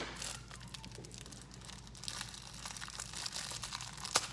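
Plastic packaging of a mystery squishy toy crinkling softly as it is handled and opened, with a sharper crackle near the end.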